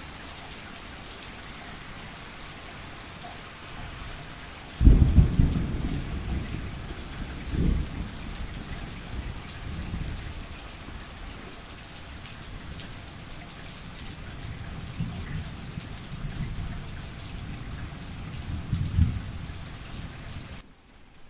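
Steady rain, then about five seconds in a sudden loud thunderclap, followed by deep thunder rumbling that swells and fades several times. Near the end the sound cuts out abruptly.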